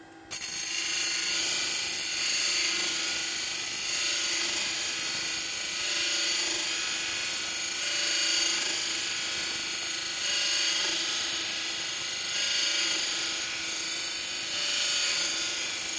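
Steel saw teeth of a wood hand saw being ground on the wheel of an ADEMS GMT II sharpening machine: a steady, loud grinding hiss that starts about a third of a second in. It is the final sharpening pass on the second face of the teeth.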